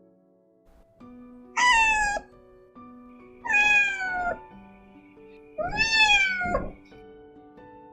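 A cat meowing three times, each meow under a second long and dropping in pitch toward its end, over soft background music.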